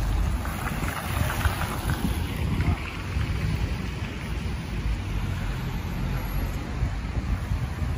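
Wind buffeting the microphone in a steady low rumble, with a car passing on the wet street in the first few seconds, its tyres hissing on the wet asphalt before fading away.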